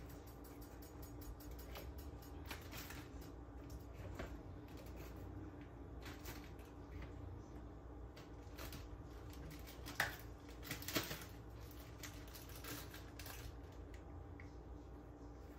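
A metal fork clicking and tapping against thin plastic containers while cut fruit is moved into a small plastic cup: scattered light clicks, with a sharper click about ten seconds in and two more about a second later. A low steady hum runs underneath.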